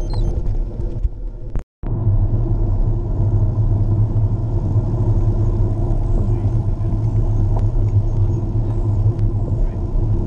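Steady low rumble of wind buffeting the microphone of a camera on a moving road bike, mixed with tyre noise on pavement. It drops out for a moment about two seconds in.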